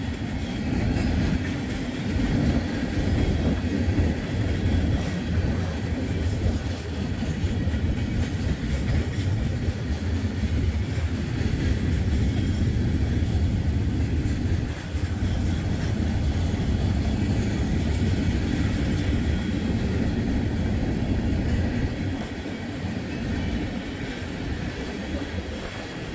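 Norfolk Southern freight train's cars rolling past close by: a steady rumble of steel wheels on the rails with some clickety-clack.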